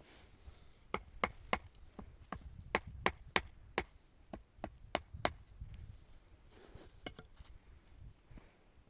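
A quick run of sharp blows from a hand tool, about thirteen strikes at two to three a second, stopping about five seconds in, then a short cluster of three more a couple of seconds later.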